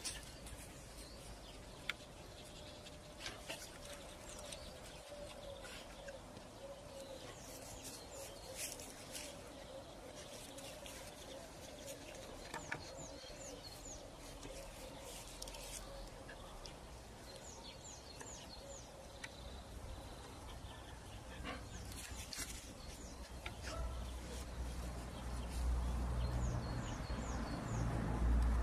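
Small birds chirping in quick, high, repeated series in the background, with a faint steady hum for a stretch and a low rumble building near the end.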